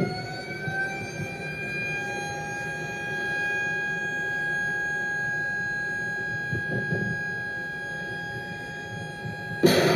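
A siren winds up, gliding upward in pitch and then holding one steady high tone. About a second before the end, a missile launch from the destroyer's forward vertical launch system breaks in with a sudden loud blast.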